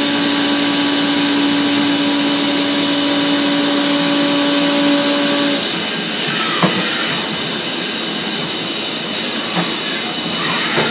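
WhisperKut Plus end mill milling 6Al-4V titanium at about 3,400 RPM: a steady hiss with a steady hum of the cut over it. The hum stops about five and a half seconds in, leaving the hiss, and a few short chirps follow.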